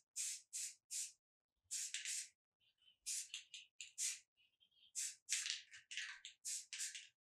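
Aerosol spray paint can being sprayed in rapid short hissing bursts, more than a dozen, each a fraction of a second, with brief pauses between groups and a few softer puffs about three seconds in.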